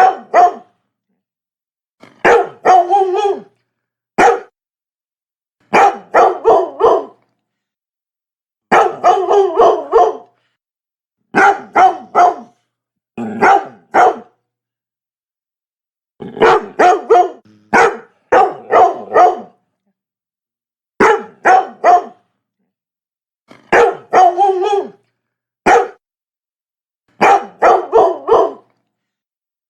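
Labrador barking in short runs of two to four sharp barks, a new run every two to three seconds, with dead silence between the runs.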